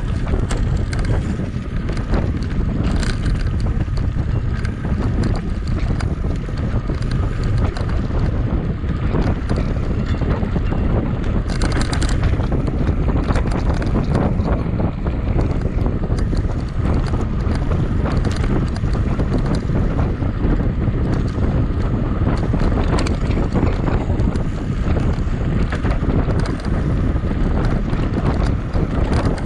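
Wind buffeting the microphone of a camera carried on a mountain bike ridden at race speed, a loud steady rumble. Scattered knocks and rattles come from the bike over rough ground.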